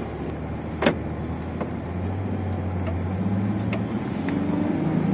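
Minivan's engine heard from inside the cabin as the vehicle pulls away, a steady low hum that grows louder from about two seconds in. A short knock sounds about a second in.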